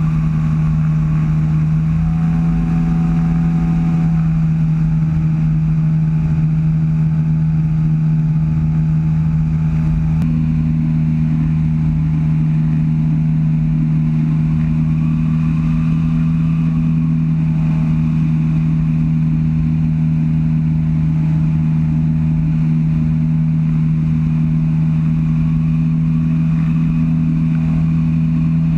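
Engine and pusher propeller of a weight-shift microlight trike running steadily in cruise flight, a loud even drone, with wind rushing over the open cockpit. A second, higher tone joins the drone about ten seconds in.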